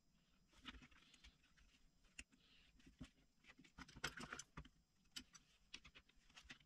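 Faint clicks and light rattles of a plastic lock housing and hand tools being handled on a workbench, with a quick run of clicks about four seconds in.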